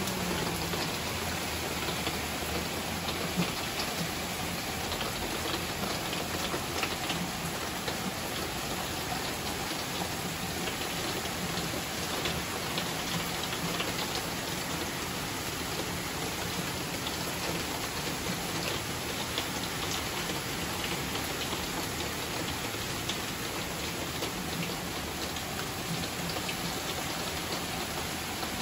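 Heavy rain falling steadily on leafy trees: a constant, even hiss dotted with many small drop ticks.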